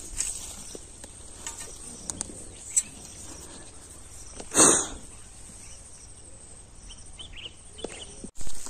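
Steady high insect chirring in the field, with a few small clicks and one brief louder noise about halfway through.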